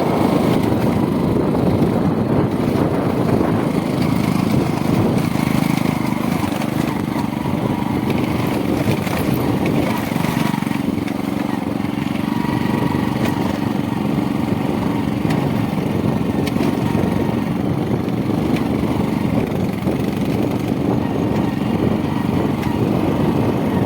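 A motor running steadily, a continuous rumble with a low hum.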